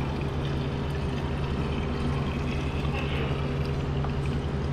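Gasoline poured from a plastic bottle into a metal injector-cleaning canister, trickling, over a steady low machine hum.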